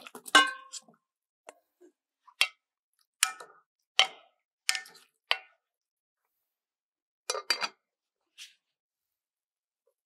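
A steel bowl clinks against the rim of an enamel soup pot as mushrooms and carrots are pushed off it with a wooden spatula. The first clink is the loudest and rings briefly. The spatula then knocks in the pot several times, under a second apart, with a quick cluster of knocks near the end.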